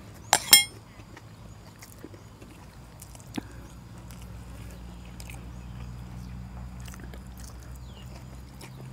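Quiet outdoor eating, with a short, sharp, high-pitched sound about half a second in and a single click a few seconds later. A low steady hum comes in from about four seconds on.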